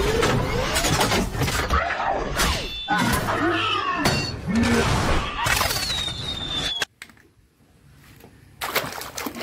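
Action-film sound effects from a giant-robot battle scene: crashing, smashing impacts and whooshes with sweeping pitch glides, cutting off abruptly about seven seconds in. After a short quiet gap, plastic toys clatter as they are handled near the end.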